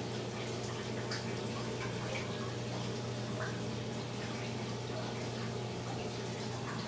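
Reef aquarium plumbing running: water steadily trickling and splashing into the divided glass sump, with small drips throughout over a constant low hum.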